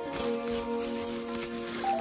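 Background music: soft held chords, with the notes changing near the end.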